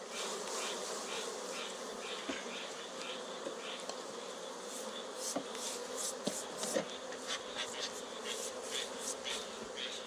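Many honeybees buzzing steadily over an opened hive box as they are brushed off a honey frame, with a few short hissing swishes and light knocks between about five and seven seconds in.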